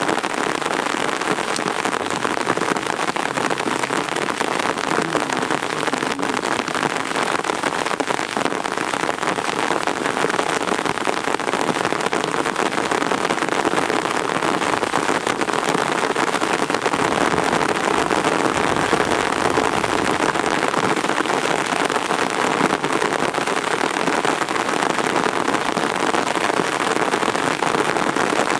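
Heavy rain falling steadily, a dense patter of drops at an even level.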